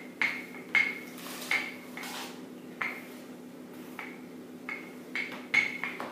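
A wooden rolling pin with a turning barrel worked back and forth over pastry on baking parchment, giving short, sharp knocks and clicks at irregular intervals, about ten in all, as the pin and its handles rattle with each stroke.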